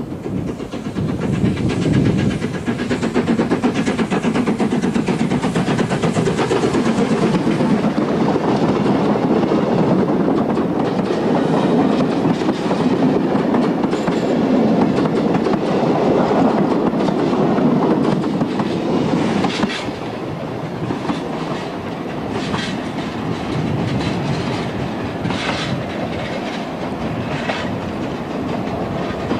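Steam-hauled passenger train behind GNR(I) 4-4-0 locomotive No. 171 passing close by: a loud, steady rush of the engine working and the carriages rolling past. About twenty seconds in it drops a little and sharp wheel clicks over the rail joints come through as the train draws away.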